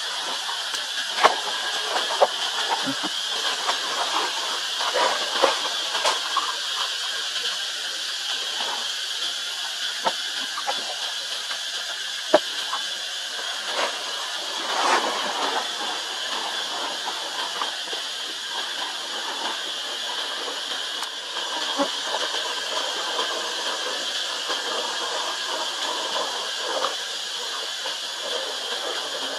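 Steady high-pitched insect drone in forest, with scattered short rustles and clicks from dry leaves.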